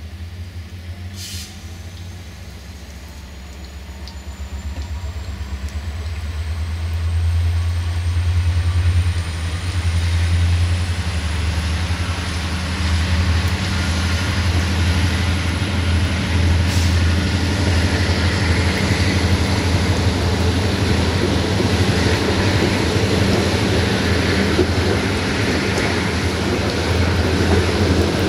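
Diesel-hauled passenger train pulling away, heard from inside a carriage. A steady low engine drone runs under a thin whine that climbs over the first dozen seconds and then holds level. Wheel and rail noise grows louder as the train gathers speed, with a couple of short clicks.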